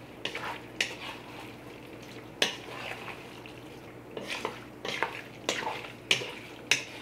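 Wooden spoon stirring chicken and vegetables in thick teriyaki sauce in a stainless steel stock pot, scraping and knocking against the pot's sides. The knocks are short and sharp, about eight of them at irregular intervals, the loudest about two and a half seconds in.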